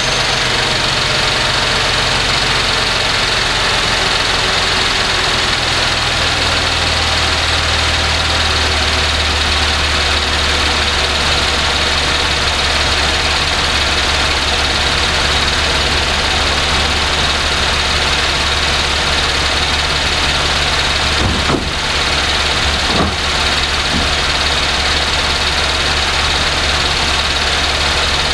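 2012 Cadillac SRX's 3.6 V6 idling steadily while warming up after an overnight cold start. Its low idle note drops a little about five seconds in, and two brief noises come about three quarters of the way through.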